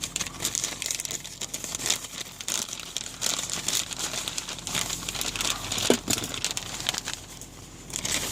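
Plastic parcel packaging and polyethylene padding crinkling and crackling as they are handled and pulled open, with a brief squeak about six seconds in and a short lull near the end.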